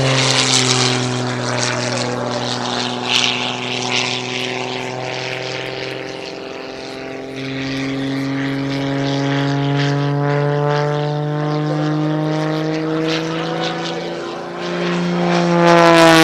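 Propeller-driven aerobatic plane's piston engine droning overhead. The pitch drops as it pulls away at the start, evens out and fades a little in the middle, then climbs and grows louder as the plane comes back for a low pass near the end.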